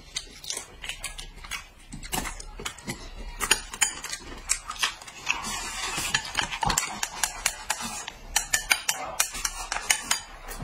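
Eating sounds at a table: chopsticks clicking against porcelain bowls many times over, with a longer stretch of mouth noise about halfway through as food is eaten straight from a bowl held to the mouth and corn on the cob is bitten.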